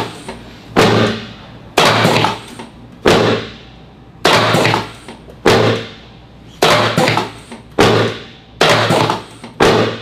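Chiropractic drop table's pelvic section dropping under the chiropractor's thrusts on the lower back, nine sharp loud clacks about one a second. Each drop is a drop-table adjustment to bring the hips and sacrum back into place.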